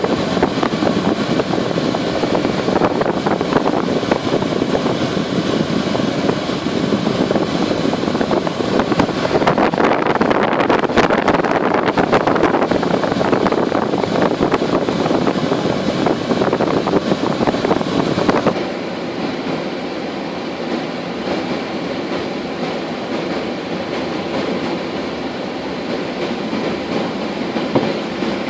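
Train running: a steady, loud rumble and rattle that drops a little in level about two-thirds of the way through.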